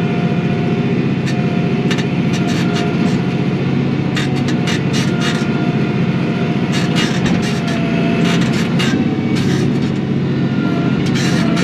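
Kioti NS6010 compact tractor's diesel engine running steadily under work, with clusters of sharp rattles and clanks from the loader bucket working the ground.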